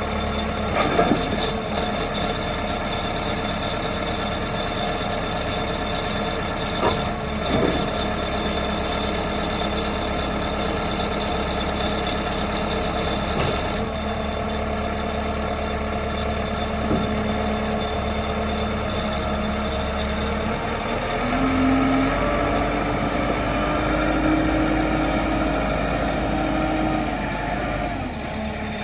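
JCB 214 Series 3 backhoe loader's diesel engine running steadily, with a few sharp knocks in the first half. Past the middle the engine note changes and a higher tone steps up and holds for several seconds, dropping away near the end.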